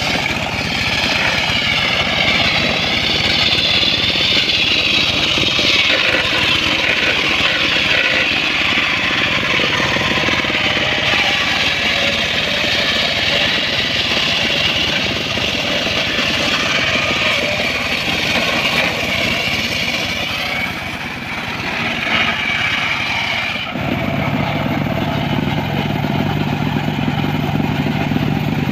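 Circular saw blade cutting through mahogany timber: a loud high whine that wavers in pitch as the blade works under load. About 24 seconds in the cut ends abruptly, leaving a steady low hum of the saw's drive running with the blade spinning free.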